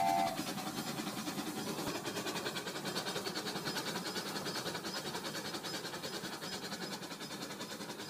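Remote-control Rail King toy train running on plastic track, its wheels and cars making a fast, even clatter that slowly fades as the train passes. At the very start, the toy's whistle sound cuts off.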